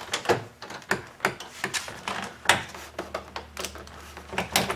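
Plastic interior door trim panel being pushed up and worked off its clips by hand: a run of irregular clicks, knocks and rattles, the loudest knock about two and a half seconds in.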